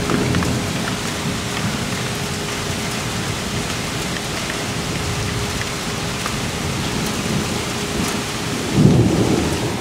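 Rain falling steadily in a thunderstorm, with a low rumble of thunder swelling about nine seconds in.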